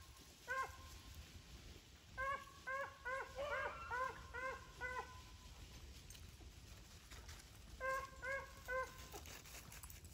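A pack of beagles baying in short, repeated barks, several voices overlapping, in three bursts: a single bark, a dense run of about a dozen, then a few more near the end. This is the hounds giving tongue as they run a rabbit's scent trail.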